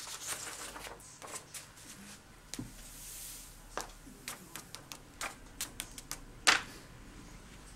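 Paper rustling and light clicks and taps as a folded sheet of paper is used to tip loose embossing glitter back into a small plastic pot, with a soft hiss of the powder sliding about three seconds in. A sharp click about six and a half seconds in is the loudest sound.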